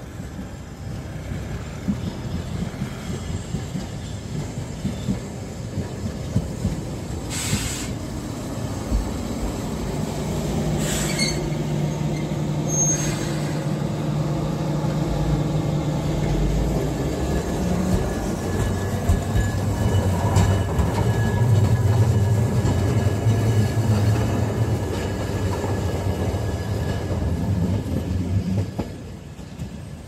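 Kagoshima City tram no. 9513 approaching and running past at close range. A steady low motor hum and wheels on rail grow louder, are loudest past the halfway point, then fall away near the end. A few sharp clicks come in the first half.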